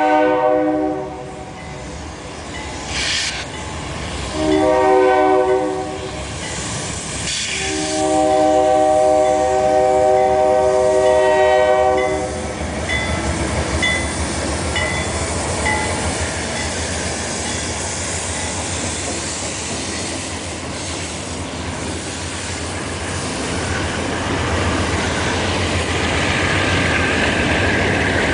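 Diesel freight locomotive's horn sounding for the grade crossing: a blast ending about a second in, a short blast around five seconds in, and a long blast from about eight to twelve seconds. After that the locomotives and freight cars rumble past over the crossing, with the rolling wheel noise growing louder near the end.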